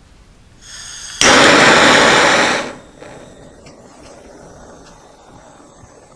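Handheld gas soldering torch: gas hisses from the nozzle, then lights with a sudden pop about a second in. The flame makes a loud rushing noise for about a second and a half, then drops to a much quieter steady sound as the torch heats the copper pipe joint for soldering.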